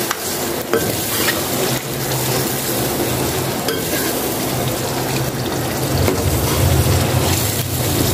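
Mutton pieces sizzling as they fry in hot oil and spice masala, stirred with a metal spoon that scrapes the pot now and then: the meat is being seared in the masala after the oil has separated.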